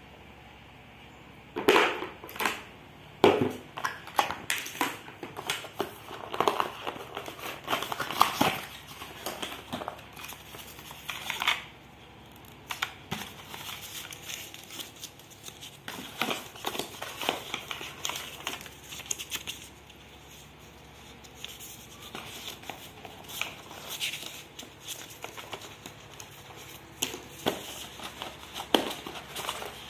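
Irregular rustling, scraping and tapping of a cardboard box and its paper inserts being handled and lifted out by hand, with a couple of quieter lulls.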